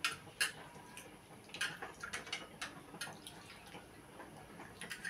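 Irregular light clicks and ticks of cooking at a gas stove, with a dal pot coming to the boil, over a faint steady hiss.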